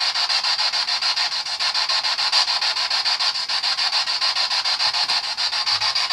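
Spirit box (ghost box) sweeping through radio stations: choppy radio static pulsing rapidly, several times a second.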